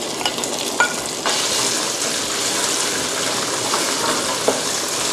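Pounded chilli and garlic paste sizzling in hot oil in a wok while it is stirred with a spatula. The sizzle grows louder about a second in, with a few light taps of the spatula against the pan.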